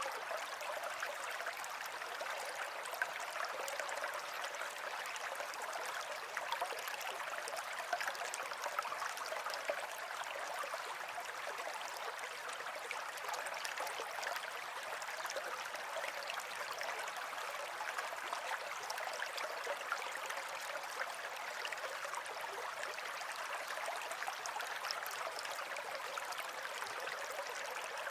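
Running water of a small stream, a steady splashing and gurgling flow with small droplet ticks throughout.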